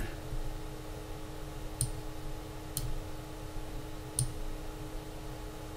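Computer mouse clicking three times, about a second apart, over a faint steady hum.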